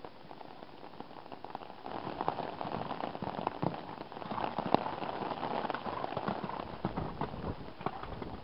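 Rain falling, with many irregular drop ticks close to the microphone; it gets heavier about two seconds in.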